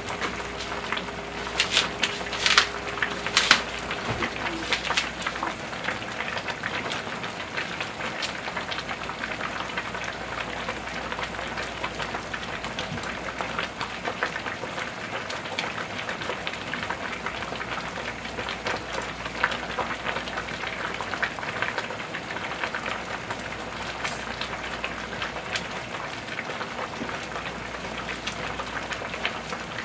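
Two large stockpots of thick pork back-bone soup boiling on a gas stove: a steady dense crackle of bubbles breaking, with a few louder pops in the first few seconds. A faint steady hum runs under it at the start.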